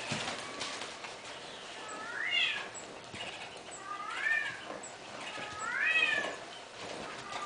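An animal calling three times, each call rising and then falling in pitch.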